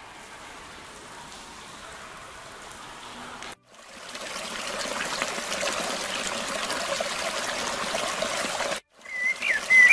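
Tinnitus-masking ambient sounds from the ReSound Tinnitus Relief app. A soft "cavern" ambience plays first. After a brief dropout about three and a half seconds in, a trickling brook is layered on and the sound grows louder. Near the end it cuts out briefly again and a bird starts chirping over the water.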